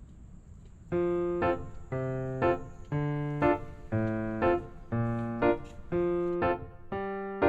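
Background music on a piano-like keyboard, coming in about a second in: a slow, steady melody with a new note or chord roughly every second, each one fading before the next.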